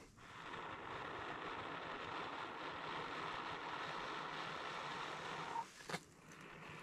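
A long, steady breath blown into a smouldering dry-grass tinder bundle to coax lit char cloth into flame. A short pause for breath comes near the end before he blows again.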